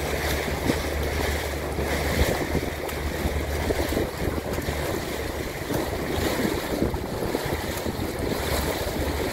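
Wind buffeting the microphone over lapping lake water, with a steady low hum underneath.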